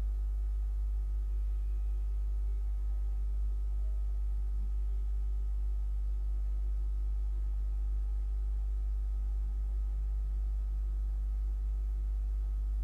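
Steady low electrical hum, unchanging throughout, with a faint steady higher whine above it.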